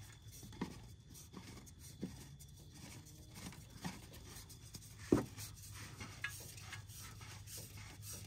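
Faint rubbing and light clicks of a new fuel filter canister being screwed on by hand to the filter head of a Duramax diesel, with one sharper knock about five seconds in.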